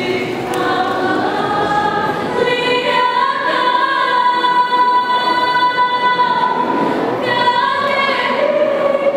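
High school choir singing in long held chords. About three seconds in, a high note is held steady for some three seconds, then the parts move on.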